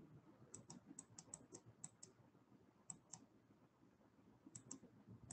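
Faint clicking at a computer: a quick run of about nine clicks in the first two seconds, then a pair about three seconds in and another pair near the end.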